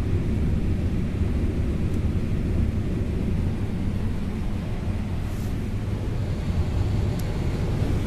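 Combine harvester running in a cornfield while unloading corn into a grain cart alongside: a steady low rumble of engine and machinery.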